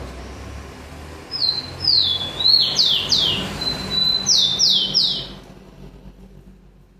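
Rufous-collared sparrow (tico-tico) singing one phrase of clear whistled notes that slide downward, ending in three quick falling slurs, over a faint low hum.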